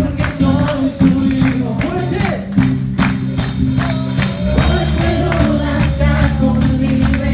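Upbeat gospel music with a steady tambourine beat over a stepping bass line and a singing voice.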